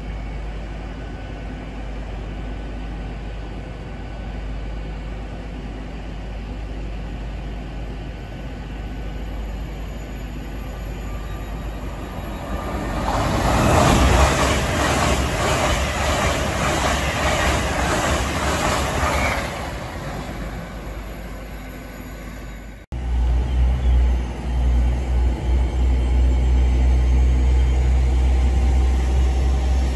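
LNER Azuma high-speed train passing: its rush swells about twelve seconds in, with a rhythmic wheel clatter about twice a second as the coaches go by, and dies away some seven seconds later. After a sudden cut, a loud low rumble.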